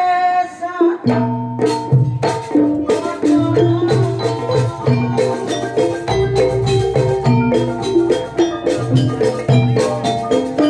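Live gamelan ensemble music: mallet metallophones play a busy, rhythmic melody over a steady drum pulse, starting about a second in after a single held pitched note.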